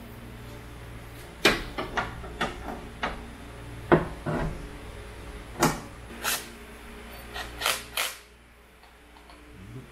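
About a dozen sharp clicks and knocks from handling the raised bonnet and metal bonnet stay of a Toyota AE86 and a cordless drill, the loudest about four seconds in. A low steady hum underneath drops away about eight seconds in.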